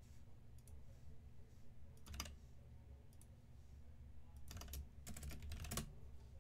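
Short runs of light clicks, like keys being pressed, over a steady low hum: one quick group about two seconds in and a longer run near the end.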